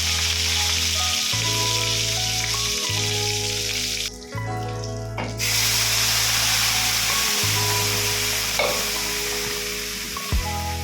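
Food frying and sizzling in a pan, with background music of held bass notes over it. The sizzle drops out for about a second around four seconds in.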